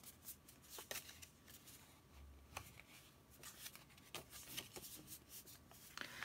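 Card-stock pop-up card being handled: a series of short, faint paper rustles and light taps as the folded card is opened and closed again.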